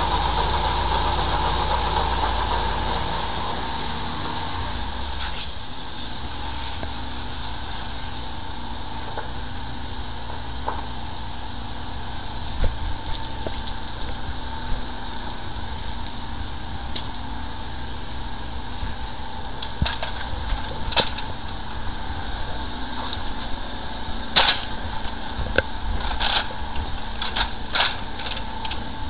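High-pressure sewer jetter at work: a steady hiss of spraying water over a low machine drone. From about halfway on the jetting hose knocks and clacks sharply as it is handled.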